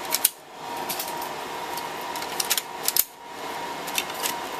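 Plastic clicks and knocks as the hot-swap cooling fan modules of a Dell PowerEdge 2950 server are pushed into their bays, with two sharper snaps, just after the start and about three seconds in, over a steady background hum.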